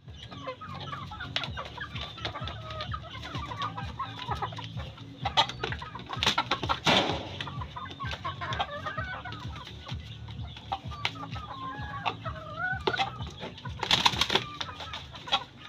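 Shamo gamecocks fighting: chickens clucking throughout, with sudden bursts of wing-flapping and scuffling, loudest around seven seconds in and again near fourteen seconds.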